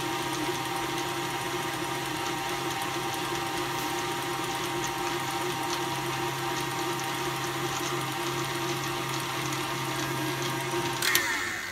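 KitchenAid stand mixer running steadily, its wire whip beating vanilla pudding and whipped topping in the stainless steel bowl. Near the end it is switched off with a click and the motor's hum falls in pitch as it slows.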